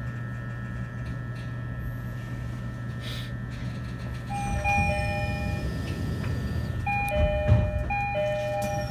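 A level-crossing warning bell rings in repeated two-tone dings from about four and a half seconds in, heard from inside a passing E129-series electric train, with the pitch of its overtones falling as the train goes by. Under it runs the train's steady running hum, with a low thump about seven and a half seconds in.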